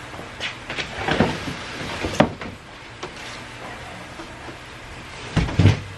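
A large cardboard shipping box being lifted up off its contents, with scraping and knocking of the cardboard in the first couple of seconds and a sharp knock about two seconds in. Near the end, two heavy thumps come as the empty box is set down on the concrete floor.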